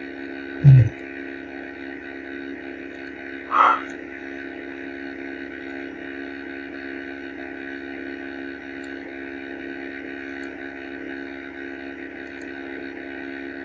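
Steady electrical hum with background hiss from the recording setup. A short low sound comes just under a second in, and another brief sound near four seconds.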